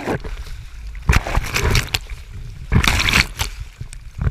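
Water splashing and sloshing in several surges, as around a sailboat's hull, over a steady low rumble of wind on the microphone.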